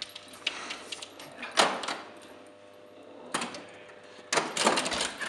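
Old Bally pinball machine in play, giving irregular mechanical clacks and rattles from its flippers and bumpers, with a dog's paws scrabbling on the playfield glass. A sharp clack comes about a second and a half in, then a quieter moment, then a quick run of clacks near the end.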